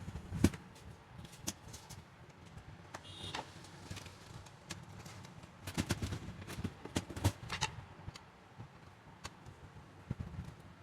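Scattered light clicks and knocks at irregular intervals, as of small parts or tools being handled on a workbench, over a low steady hum.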